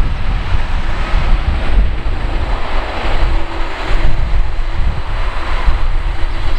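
Jet engines of a taxiing Boeing 747-400 running at low power: a steady rushing hum with a faint steady tone that grows plainer a few seconds in. Heavy wind rumble on the microphone runs underneath.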